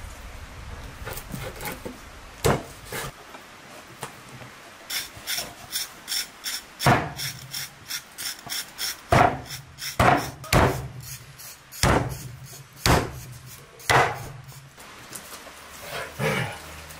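Cleaver and knife chopping lamb meat and fat on a wooden chopping board. Quick light taps give way to heavy single chops about a second apart.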